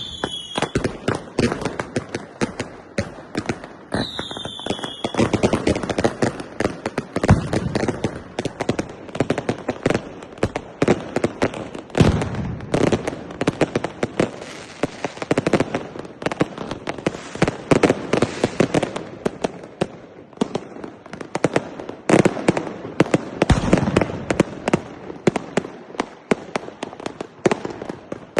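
Fireworks going off in a dense, continuous barrage of rapid bangs and crackles, with a short falling whistle about four seconds in.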